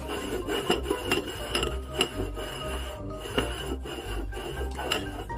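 Upturned ceramic bowls being slid and scraped quickly back and forth across a wooden tabletop in a shuffle.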